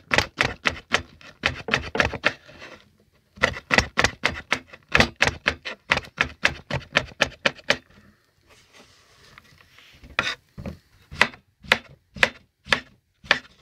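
Knife chopping salad vegetables on a cutting board in quick, even strokes, about four or five a second. The chopping pauses briefly twice, and the strokes come slower near the end.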